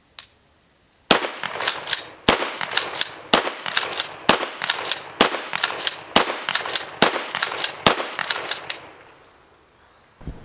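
Dickinson pump-action shotgun fired about eight times in quick succession, roughly one shot a second, each report echoing, with smaller clicks between shots from the pump being worked.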